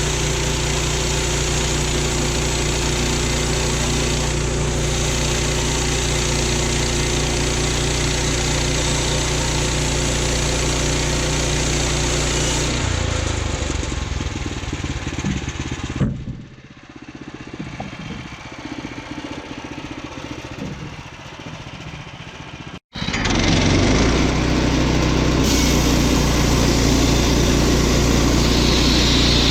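Woodland Mills HM122 portable bandsaw mill's gas engine running steadily. About halfway through, the sound changes and drops to a lower level for several seconds. Then, after a sudden brief break, it runs loud again.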